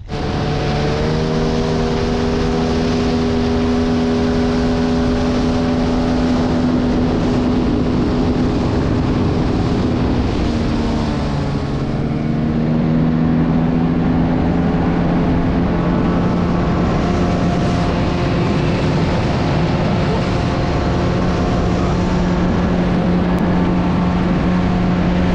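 Outboard motor on an inflatable boat running at speed, a steady engine hum over a rush of water and wind. About eleven seconds in, the engine note dips and then settles at a slightly different pitch.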